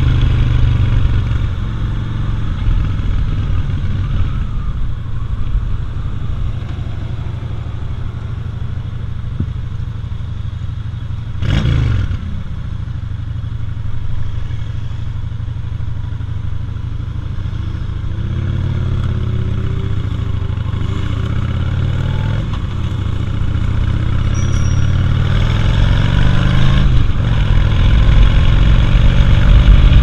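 Cruiser motorcycle engine running while riding in city traffic, its pitch stepping up and down with speed and gear changes and getting louder as it accelerates near the end. About twelve seconds in, a brief whoosh falls steeply in pitch.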